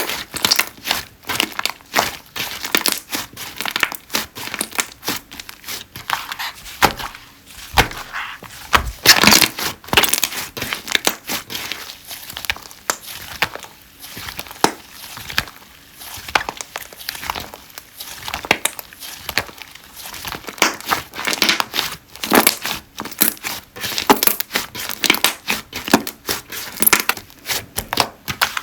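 Slime being squished and pressed by hand, making dense, continuous crackling clicks and pops, with louder flurries about nine seconds in and again in the last third.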